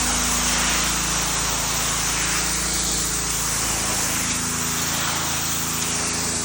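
Gas-powered Mi-T-M pressure washer running steadily, its engine drone under the loud hiss of the high-pressure water spray.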